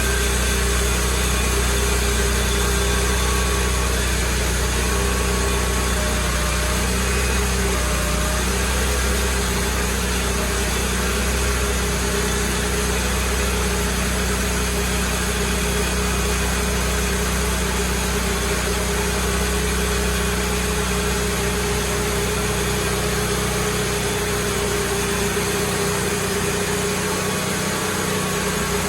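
Sawmill engine running steadily through a slabbing cut on a maple log; its low rumble fades about 25 seconds in.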